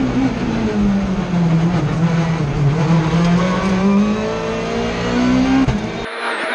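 Hyundai i20 WRC rally car's turbocharged 1.6-litre four-cylinder engine, loud inside the cockpit at speed. Its note falls over the first few seconds, climbs back again, then drops sharply just before the end.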